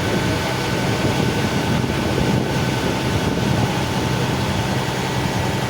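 Steady motor drone with a low hum, running evenly without change.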